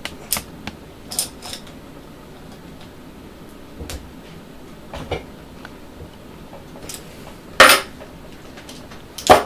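Slip-joint pliers clicking and clinking against brass fittings as a nut is turned tight, a few scattered clicks with a louder clank late on.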